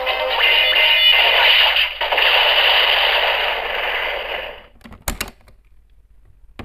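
DX Kamen Rider Zero-One toy transformation belt playing its electronic sound-effect music through its small speaker, which stops abruptly about two-thirds of the way through. A few sharp plastic clicks follow as the belt is handled, then it goes quiet.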